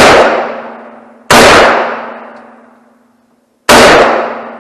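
AK-pattern rifle in 7.62×39 firing three single shots, spaced unevenly, each loud crack trailing off in a long echo.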